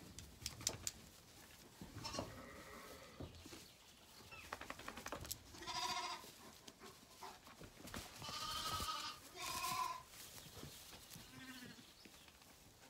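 Lambs bleating: three wavering calls in the middle, the second the longest, then a fainter, lower call. Light rustling and sharp clicks come before them.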